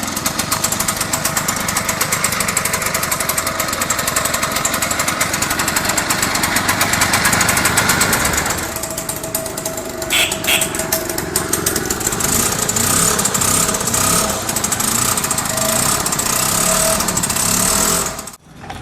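A small combustion engine running with a rapid, even firing beat. Its sound changes about eight seconds in.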